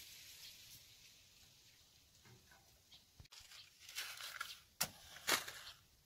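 A wooden match scraped against the side of a matchbox, then struck sharply twice about half a second apart near the end, the second strike the loudest, and the match lights.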